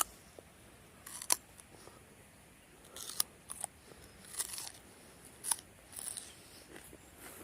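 A series of short, crisp snips and crunches, irregularly spaced, about ten over several seconds.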